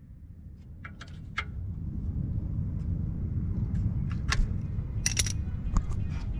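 Scattered sharp metallic clinks of hand tools and bolts being worked on an engine's alternator bracket, over a low steady rumble.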